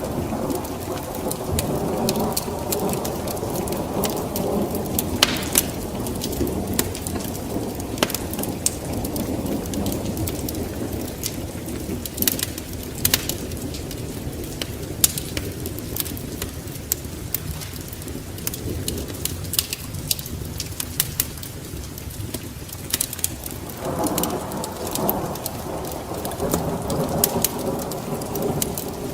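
Steady rain with a low rolling rumble of thunder that swells near the start and again about three-quarters of the way through, over the sharp, scattered crackles and pops of a wood fire in a fireplace.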